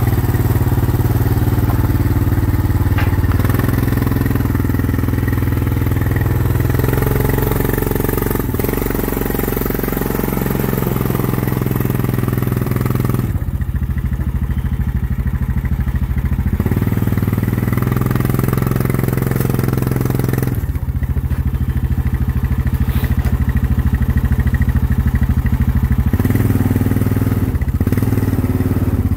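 ATV engine running steadily at low speed, heard close up.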